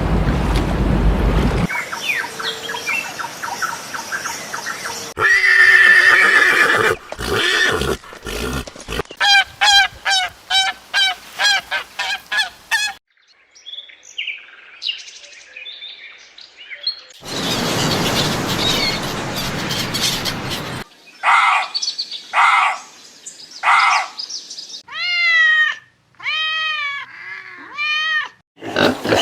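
A string of different animal calls cut one after another, some bird-like, with repeated pitched calls, a short quieter stretch midway and a run of arching calls near the end.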